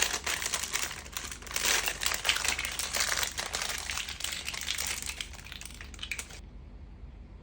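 Plastic packaging crinkling and rustling as it is handled and unwrapped. It stops abruptly about six seconds in.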